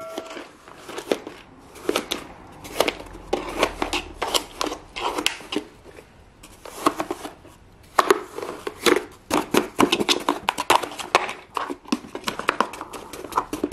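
Plastic toy spades chopping through logs of kinetic sand and hitting the bottom of a plastic sand tray: quick, irregular taps and knocks, coming faster in the second half.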